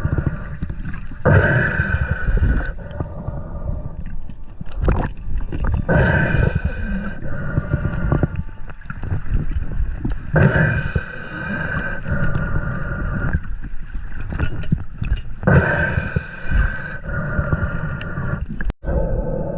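A freediver's breathing through a snorkel, a breath every four or five seconds, over gurgling and sloshing water right at the mask-mounted microphone.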